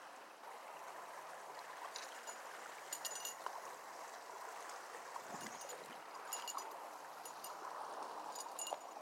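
Creek water running steadily, with a few short clusters of light clicks and clinks scattered through.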